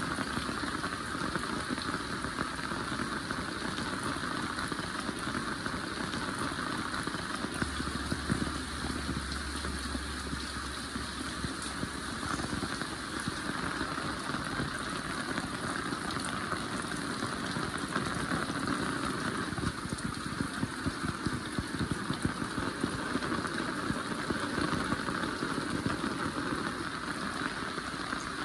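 Heavy rain falling steadily, a dense patter of drops hitting the ground and nearby surfaces.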